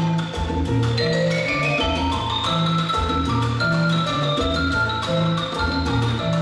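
Music with a steady percussive beat, a bass line and a melody of short pitched notes.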